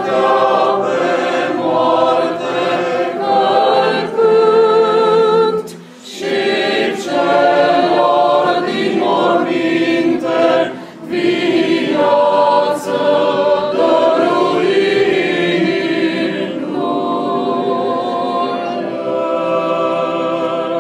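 Small a cappella vocal group singing Orthodox liturgical chant in sustained chords, with brief breaks between phrases about six and eleven seconds in.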